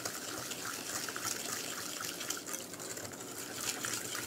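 A hand whisk beating melted butter into lemon zest and cane sugar in a glass bowl: a steady wet swishing, dotted with quick light ticks.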